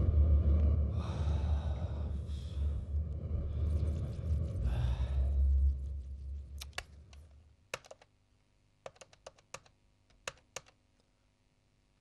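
A low rumble fades away over the first six or seven seconds. Then the buttons of a white desk telephone are pressed as a number is dialled: about a dozen sharp clicks, irregularly spaced, over some four seconds.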